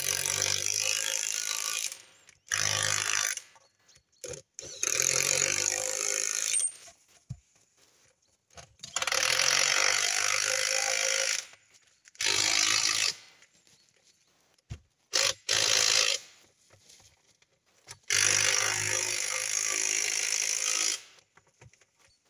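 Impact wrench hammering on a forwarder's wheel nuts in about seven bursts of one to three seconds each, with short pauses between as it moves from nut to nut.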